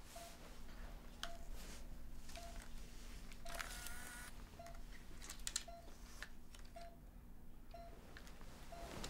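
Hospital patient monitor beeping steadily, one short beep about every second. Over it, sharp clicks and a brief rasping ratchet about three and a half seconds in from a camera being handled.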